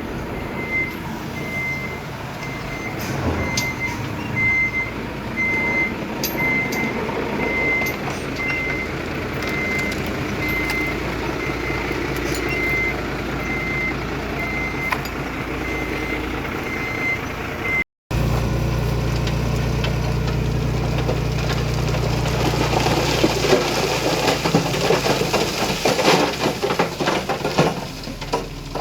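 Dump truck's reversing alarm beeping about once a second over the rumble of its diesel engine. After a sudden cut, a heavy diesel engine runs steadily, with dense rattling and clattering building up toward the end.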